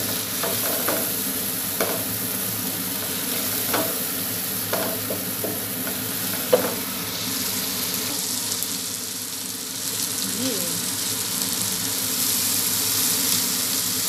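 Chopped onion, garlic, tomato and kamyas sizzling in oil in a nonstick frying pan while a wooden spatula stirs them, with several light knocks of the spatula against the pan; the sharpest knock comes about six and a half seconds in.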